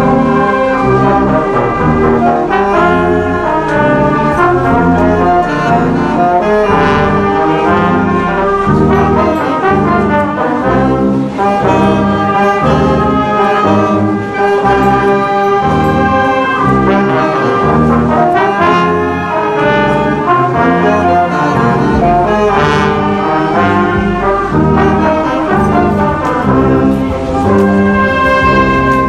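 A uniformed brass band playing a tune, the trombone leading, with saxophones and a trumpet.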